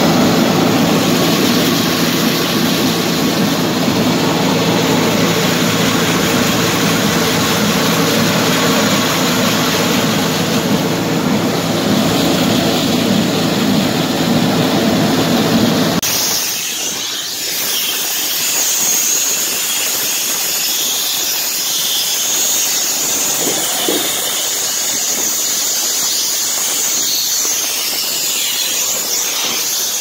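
Heavy construction machinery running steadily during asphalt removal on a bridge deck. About halfway through, the sound abruptly changes from a dense engine noise to a steady high-pitched hiss with little rumble.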